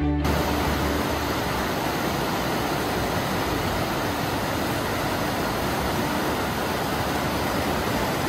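Fast mountain river rushing over rocks in whitewater: a steady, even roar of water.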